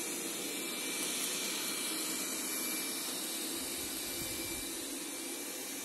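Roborock S6 MaxV robot vacuum running: a steady rush of suction noise with a faint high whine.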